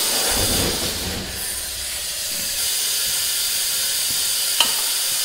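Steady hiss of compressed air at a semi-trailer tire being inflated to seat its bead. There is a brief low rumble about half a second in, the hiss gets a little louder about two and a half seconds in, and there are two sharp clicks near the end.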